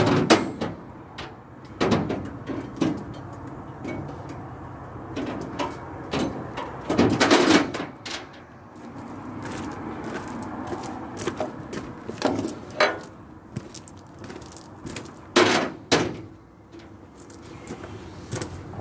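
A series of irregular knocks and clunks, with the loudest ones at the start, about two seconds in, around seven seconds in and around fifteen seconds in.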